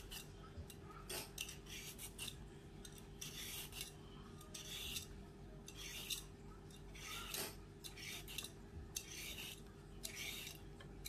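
A Y-shaped vegetable peeler scraping ribbons off a raw carrot: a run of short, rasping strokes, about one or two a second.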